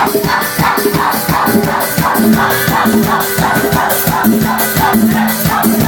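Live forró band playing an instrumental passage, with a quick, steady beat of about four strokes a second under held melody notes.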